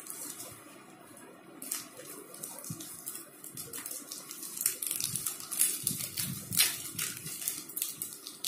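Plastic courier envelope rustling and crinkling as it is pulled open by hand, quiet at first and then a busy run of crackles through the second half.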